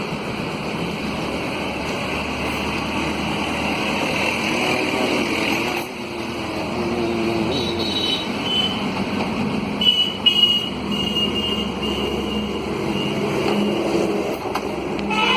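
Steady road traffic noise from passing vehicles, with a few short high-pitched tones about ten seconds in.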